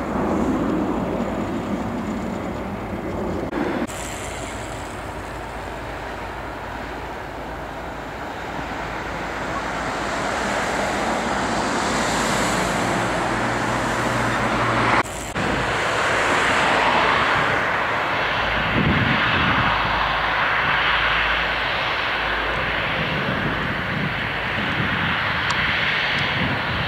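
Jet engine noise from a Boeing 777-200ER's Rolls-Royce Trent 800 turbofans as the airliner taxis out for takeoff, growing louder about a third of the way in. The sound breaks off abruptly twice where shots are cut together.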